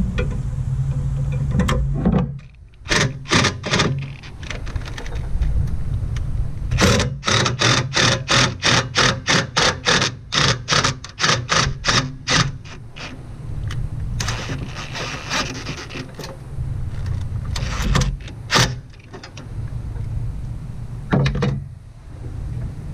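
Cordless power driver on bolts in a car's engine bay, run in short trigger bursts: a few at first, then a quick run of about three a second for several seconds in the middle, and two more near the end. A steady low hum lies underneath.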